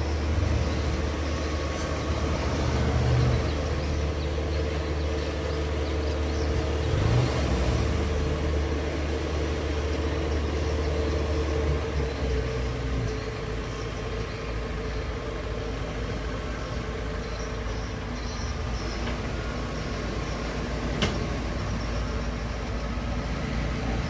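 Kubota DC-70 combine harvester's diesel engine running steadily as the machine crawls on its tracks down a bank onto a boat. The engine note shifts lower about halfway through, and there is one short knock near the end.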